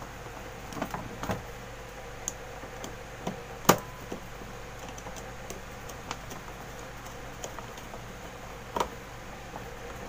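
Screwdriver and fingers working wires into the screw terminals of a plastic fire-alarm call point: scattered light clicks and taps, the sharpest a little under four seconds in, over a faint steady hum.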